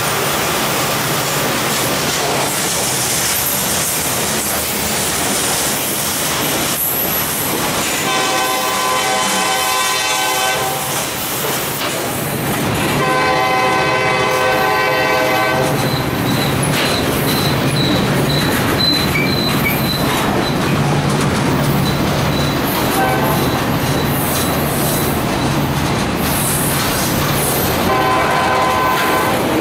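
Freight cars rolling past close by, with steady wheel-on-rail clatter and a thin high wheel squeal in the middle. Over it the locomotive's air horn blows ahead at the crossing: two long blasts a few seconds apart, then a short one and a final long one near the end, the grade-crossing pattern.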